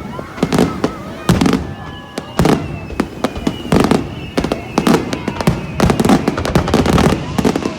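Aerial fireworks shells bursting in a rapid, irregular barrage of loud bangs, several a second, each with a short echoing rumble.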